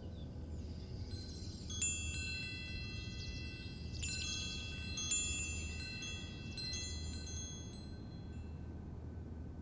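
Metal chimes ringing in clusters of light strikes from about two seconds in, each note ringing on, over a low steady hum.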